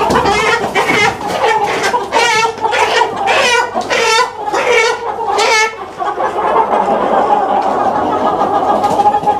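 Chickens squawking in alarm as birds are caught by hand: a run of loud, repeated squawks over the first six seconds, then the flock clucking steadily.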